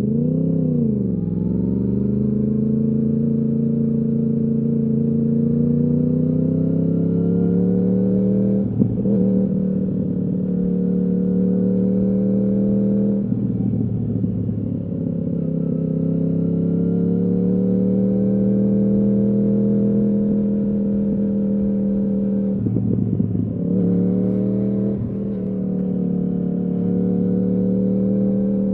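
2015 Yamaha R1's crossplane inline-four running through a full Akrapovič exhaust, under steady riding throttle, its pitch rising and easing gently. There is a quick drop and climb in pitch just after the start, and brief breaks in the note about a third of the way in and a few times near three-quarters through.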